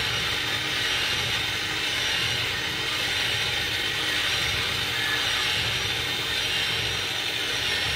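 Pampered Chef Twist & Chop electric chopper running steadily, its motor-driven blade whipping cream into whipped cream.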